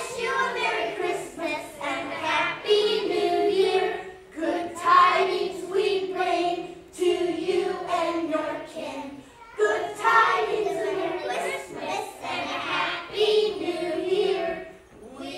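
A small group of preschool children singing a Christmas song together, in phrases with short breaks between them.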